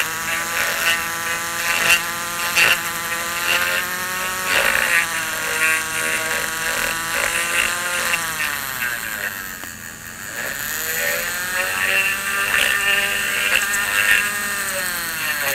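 A handheld rotary tool (Dremel-type) with a small cutting bit grinds cured epoxy bedding compound out of a rifle stock. Its motor whine wavers in pitch as the bit bites and eases off, sagging about eight seconds in and then climbing back.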